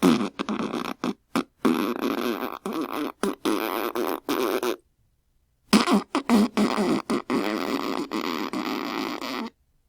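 Wacky fart sound effects: a long sputtering run of short, broken blasts, a gap of about a second, then a second sputtering run that stops shortly before the end.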